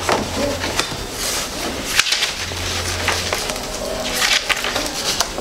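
Paper rustling as sheets and cardboard document folders are handled and turned over on a desk, in several short rustles with a sharp click about two seconds in.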